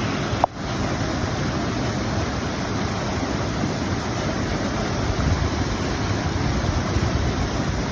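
Steady rush of flowing water from the creek and falls, with wind buffeting the microphone. A brief click and dropout about half a second in.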